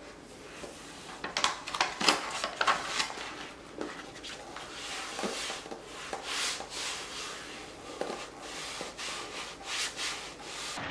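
Cotton work gloves rubbing and smoothing a sheet of self-adhesive interior film over a flat panel: a series of irregular rustling swipes, busiest in the first few seconds.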